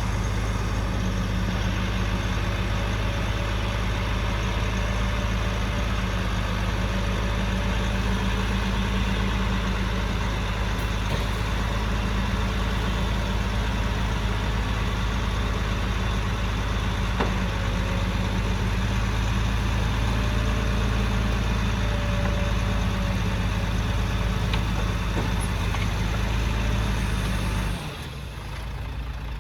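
Large heavy-equipment engine running steadily with a deep, constant drone, dropping off suddenly near the end.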